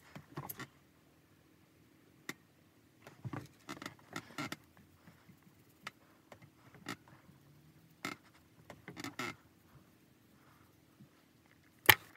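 Small objects being handled: scattered light clicks, taps and rustles, with a sharper click near the end.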